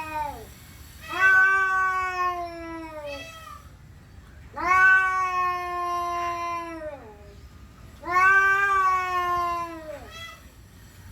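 Domestic cat yowling territorially at another cat it has seen outside: a tail-end call, then three long drawn-out yowls of about two seconds each, every one dropping in pitch at its end, with short extra calls after the first and the last.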